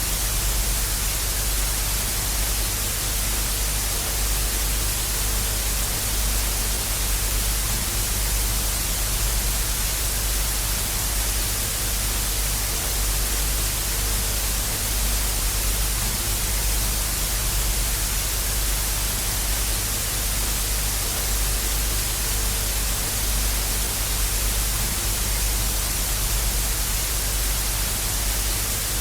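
Television static: a steady, even hiss of white noise with a low hum underneath.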